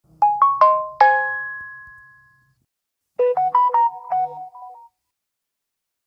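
Two Samsung Galaxy phone notification tones previewed one after the other from the phones' speakers. The first is four quick rising chime notes ending on a ringing chord that fades away; about three seconds in, a second, different tone plays as a quick run of bright notes.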